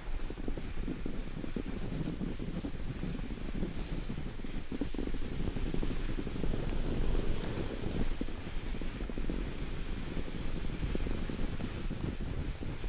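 Wind buffeting the microphone: a gusty, uneven low rumble with no pauses.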